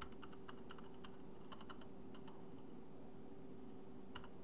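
Typing a password on a computer keyboard: quick runs of key clicks for about two seconds, a pause, then a few more keystrokes near the end. A faint steady hum runs underneath.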